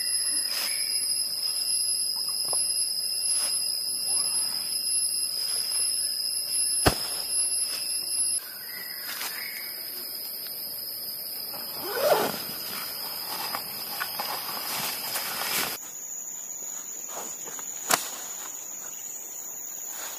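Steady, high-pitched drone of forest insects, several whining tones at once, shifting in pitch a couple of times. Over it, nylon packs and a tent bag rustle as they are handled, loudest about twelve seconds in, with a sharp click about seven seconds in and another near the end.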